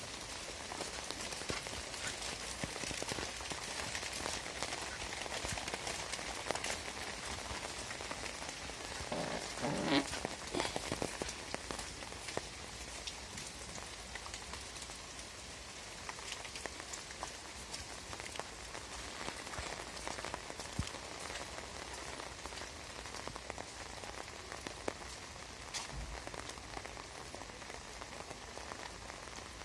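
Steady rain falling on wet ground and foliage: a constant hiss made up of many small drop patters. About ten seconds in there is a brief, louder noise.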